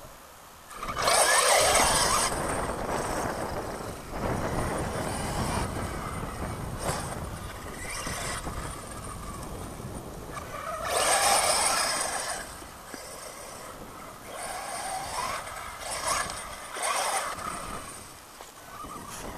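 Electric 1/8-scale RC truggy (Team Associated RC8T-e) driving on sand and dirt, its brushless motor whining up and down in pitch through several bursts of acceleration, with the tyres churning the sand. The loudest bursts come about a second in and about halfway through.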